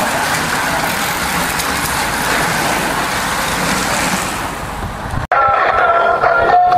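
Steady rushing of a bunch of racing cyclists and a following car passing close: tyre and wind noise. About five seconds in it cuts off sharply and music starts.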